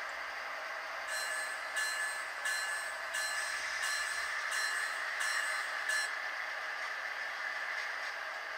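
Electronic locomotive bell from a model train's sound decoder, ringing about eight times at an even pace, one strike every 0.7 seconds or so, over a steady hiss.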